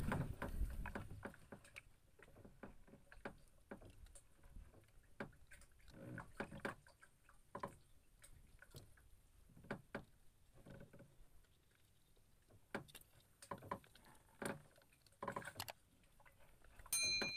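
Scattered light knocks and thumps of handling inside a small wooden boat as a longline is hauled in by hand. Near the end, a brief high ding.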